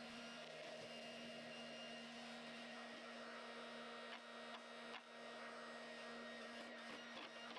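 Faint steady hum with a light hiss beneath it, and a couple of soft ticks about halfway through.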